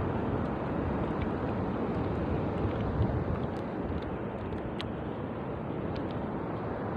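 Steady wind noise on the microphone out on open sea, with water washing around a small outrigger canoe and a few faint light ticks.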